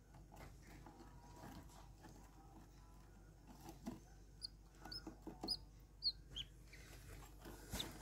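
Budgerigars in a nest box giving a run of about five short, high chirps a little past the middle, over faint scratching and shuffling on wood shavings.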